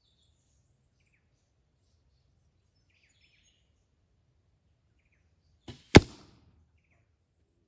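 An arrow striking the cardboard target butt close by with one sharp, loud smack about six seconds in, a fainter knock a moment before it.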